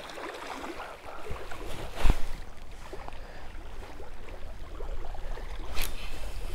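Wind on the microphone and small waves lapping at the shore, with two sharp knocks, one about two seconds in and one near the end.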